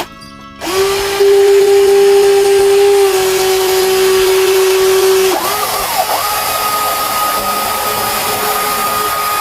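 Small electric motor of a remote-control toy vehicle whining steadily over a hiss. It cuts out briefly at the start, then about five seconds in it sweeps up and settles at a higher pitch as the motor speeds up.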